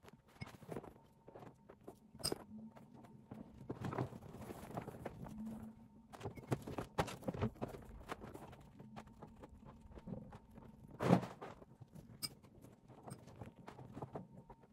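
Scattered rustles, clinks and light knocks as fabric hammocks and liners are unhooked and pulled out of a wire rat cage, with one louder knock about eleven seconds in.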